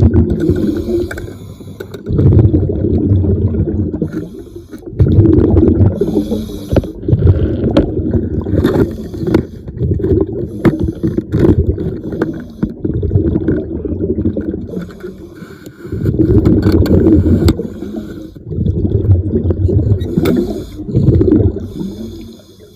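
A diver breathing underwater: exhaled air bubbling out in repeated low bursts every two to three seconds, with a short hiss of inhalation between some of them.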